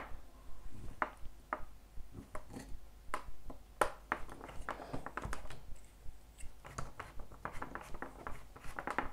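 Light, irregular clicks and taps of hard plastic toy parts being handled as modelling dough is pressed through a Play-Doh playset's mould.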